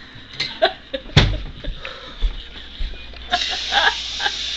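Wooden kitchen cabinet door and glassware knocking and clinking as a glass is grabbed from the shelf, with one loud knock about a second in. Near the end comes a rush of hissing noise with some voice in it.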